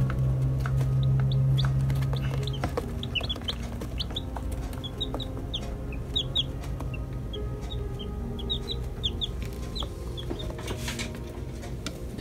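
Newly hatched chicks peeping: many short, high chirps, thickest from about three to ten seconds in.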